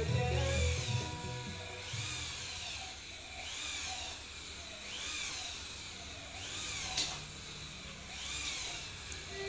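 Corded electric hand drill boring into aluminium window-frame profile; its whine rises and falls in pitch about once a second. A short sharp click about seven seconds in.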